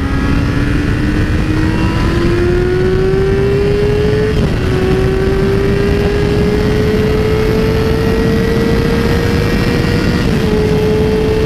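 Sport motorcycle accelerating hard, its engine note climbing steadily in pitch with two quick upshifts, one about four seconds in and one near the end, over heavy wind rush.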